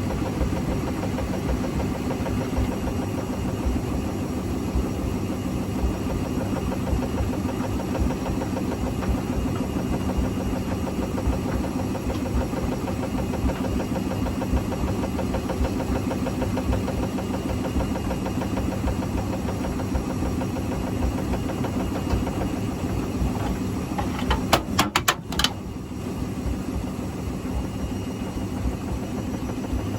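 Hotpoint Extra WMXTF942 washing machine on a rinse spin with a very unbalanced load: its motor drone is steady and the drum thuds continuously. About 25 seconds in, a quick burst of sharp knocks and rattles breaks through.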